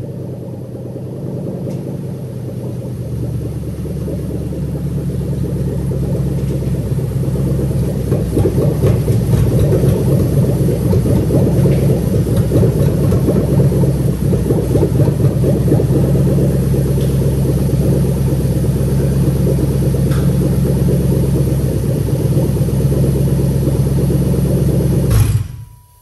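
Toyota UZ-series V8 running at idle, growing louder over the first several seconds and then holding steady, with its PCV breather pipe pulled off and open to the air so that unmetered air gets past the mass airflow sensor. The mechanic says this makes it run differently and misfire at random. The engine is switched off near the end and stops abruptly.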